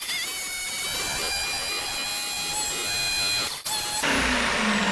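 A handheld electric power tool running and cutting into a wooden kitchen cabinet, a steady high motor whine. About three and a half seconds in it breaks off briefly and comes back as a rougher cutting noise with a slowly falling pitch.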